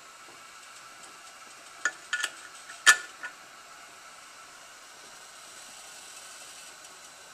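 Stovetop pressure canner heating, with a faint steady hiss and a few sharp metallic clinks about two to three seconds in, the loudest near three seconds.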